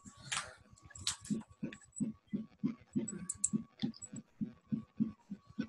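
Computer keyboard being typed on: soft, irregular key clicks, several a second, picked up through a video-call microphone.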